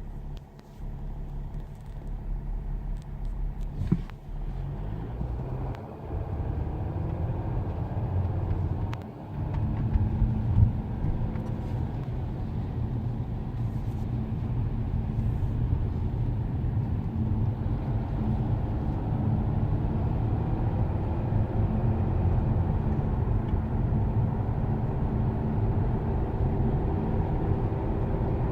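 Road and drivetrain noise heard from inside a 2008 Mercedes E320 CDI V6 diesel with a 7G automatic while it drives, a steady rumble that slowly grows louder, with a faint steady whistle above it. The owner cannot find the whistle's cause: it comes in around 60 km/h and dies away when slowing to about 20 km/h, and it does not seem tied directly to road speed or engine revs.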